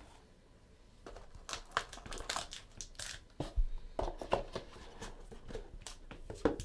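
Plastic wrapping on a trading-card box being crinkled and torn open by hand, in irregular rustles and rips.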